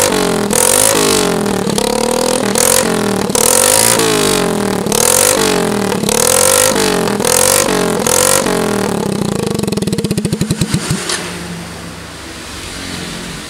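Suzuki Smash's single-cylinder four-stroke engine blipped repeatedly through a bare header pipe with no muffler, its note rising and falling with each rev. About nine seconds in it drops back and settles to a quieter run. The valve train sounds smooth even though the worn engine is smoking.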